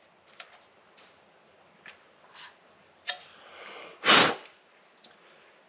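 A few faint, sharp clicks from handling the router's opened plastic handle parts, then a loud, short sniff about four seconds in.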